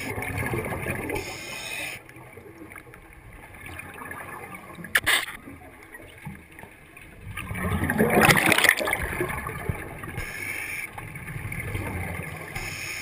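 Underwater bubbling and gurgling of scuba divers' exhaled air, rising and falling in several swells and loudest about eight seconds in, with a single sharp click about five seconds in.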